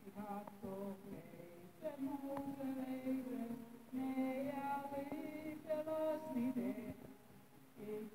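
A woman singing a slow melody into a handheld microphone, in long held notes with short breaks between phrases.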